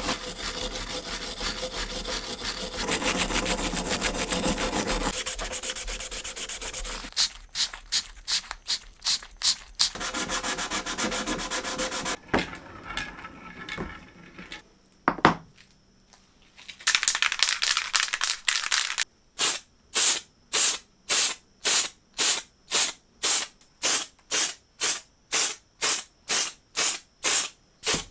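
Hand sanding and rubbing on the parts of an old hand drill. It starts as a continuous scrubbing for several seconds, then breaks into separate back-and-forth strokes, with a sharp click near the middle. In the last third it settles into even, hissy strokes at about two a second.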